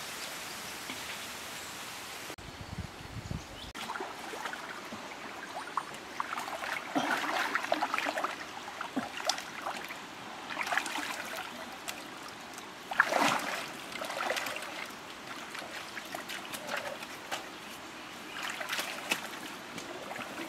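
Water splashing and sloshing irregularly as a person wades through river water and reaches into it, with the sharpest splash about thirteen seconds in. The first two seconds hold only a steady outdoor hiss.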